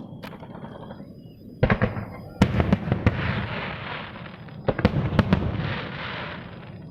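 Fireworks going off: sharp bangs of bursting shells, a cluster about two and a half seconds in and another around five seconds, each followed by a long crackling hiss.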